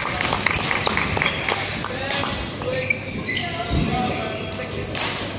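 Voices chattering in a large, echoing badminton hall, with scattered sharp taps and knocks from the court during the first few seconds.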